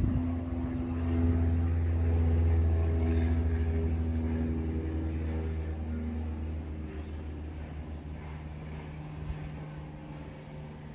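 Kärcher K2 electric pressure washer running: a steady low motor-and-pump hum that slowly gets quieter.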